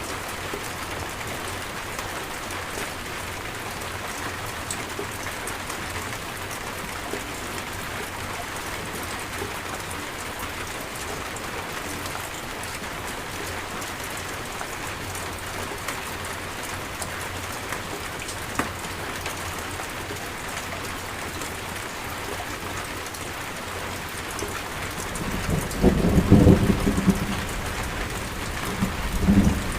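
Steady heavy rain falling and pattering on surfaces, with low rolling thunder rumbling up near the end.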